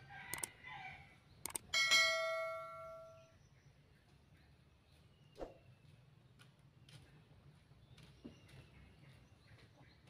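A few sharp clicks, then about two seconds in a single bell-like metallic ring that dies away over a second or so; after that only a few faint short knocks.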